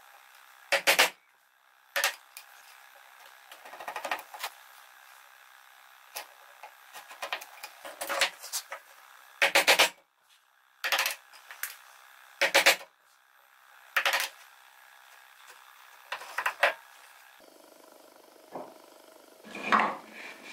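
Hammer striking a wood chisel to chop a notch in a softwood block: sharp knocks a second or two apart, some with a short metallic ring. A softer knock comes near the end.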